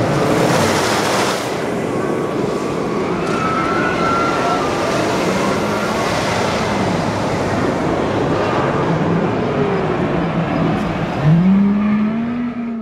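Amusement park din: a loud, steady rushing roar, louder and hissier for the first second and a half, with a rising tone coming in near the end.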